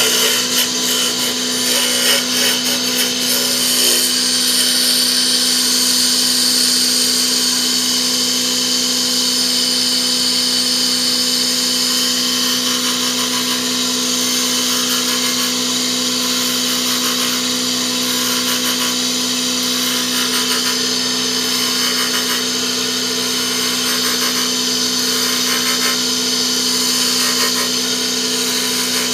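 Electric woodturning lathe running steadily, with a constant hum and a high hissing noise over it, as of a turning tool working the spinning wood of a knife handle. There is a rapid, uneven chatter in the first few seconds.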